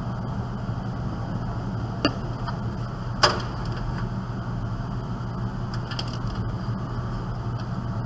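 Two sharp plastic-and-metal clicks, the louder one just after three seconds in, as cable connectors are handled and pushed into place inside a desktop computer case, over a steady low hum.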